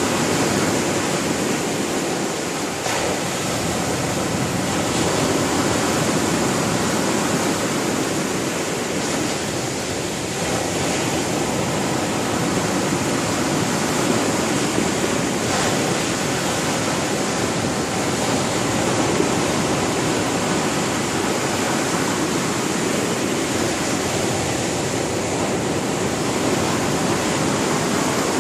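Sea waves breaking on a shore in a continuous wash, with only slight swells in loudness.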